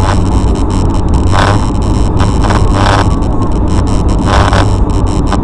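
Steady road and engine noise of a car driving on a snowy highway, heard from inside the cabin: a heavy low rumble with a brief hiss about every second and a half and scattered light ticks.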